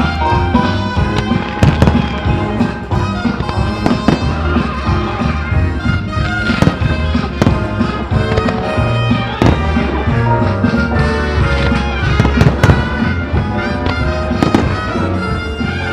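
Aerial firework shells bursting in a run of sharp bangs at irregular intervals, over loud accompanying music.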